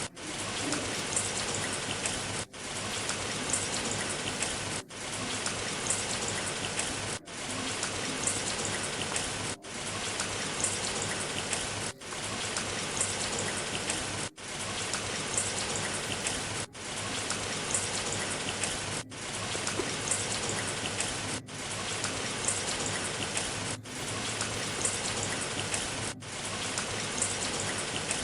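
Steady rain falling, an even hiss and patter broken by a brief dip about every two and a half seconds.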